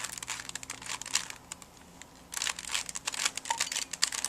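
Rubik's Cube being turned fast during a speed-solve, its plastic layers clicking and clacking in quick runs, with a short pause about two seconds in before the turning starts again.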